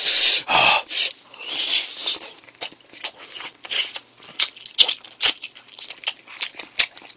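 Two loud huffs of breath in the first two seconds as the chili heat of spicy smoked chicken builds. Then close-miked chewing with many short, wet smacks and clicks of the lips, tongue and fingers being licked clean of sauce.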